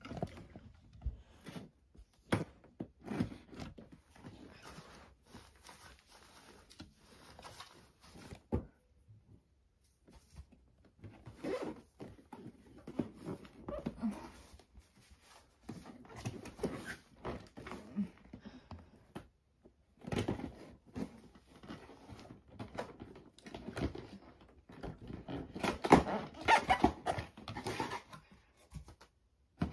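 Scissors cutting through the tape and cardboard of a boxed toy, with scratchy rustling and clicks from the box being handled and turned. The sound comes in irregular spells with a few short pauses.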